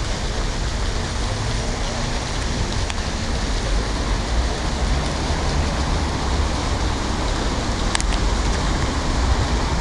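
Steady outdoor background noise, a hiss with a fluctuating low rumble, and a couple of sharp clicks about eight seconds in.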